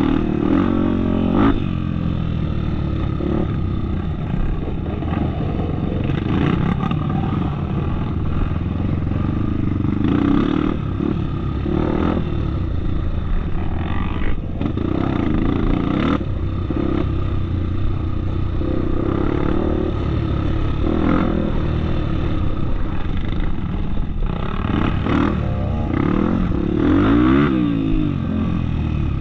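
Off-road motorcycle engine running hard, revving up and falling back again and again, with scattered knocks and clatter.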